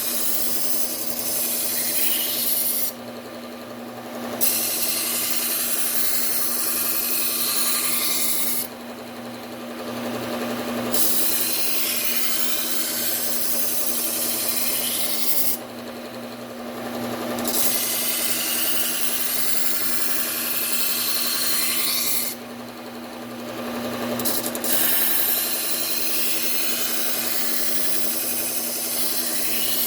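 Bucktool low-speed belt sander with a Cubitron 120 belt grinding a kitchen knife's edge to raise a burr. Passes of hissing grinding several seconds long are broken four times by pauses of about 2 s, where only the sander's steady motor hum is left.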